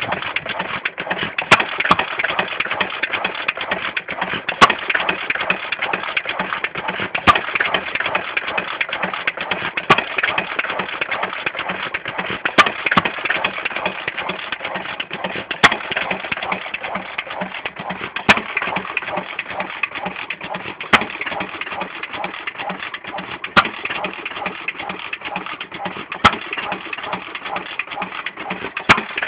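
Amanco Hired Man 2 1/4 hp open-crank stationary engine running hit-and-miss: a sharp firing bang about every two and a half seconds over a steady mechanical clatter. It sounds healthy on a home-made gasket that stopped compression blowing into the oiler and igniter.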